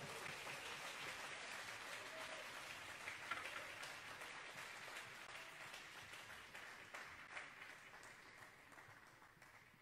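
A small crowd of spectators applauding a point just won in table tennis, the clapping fading away gradually over several seconds.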